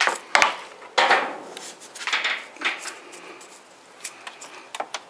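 Knocks, clatter and rustling of a bungee cord being handled and hooked in place to hold up an SUV's open lift gate. There are two sharp knocks about half a second and a second in, then rustling and scattered clicks.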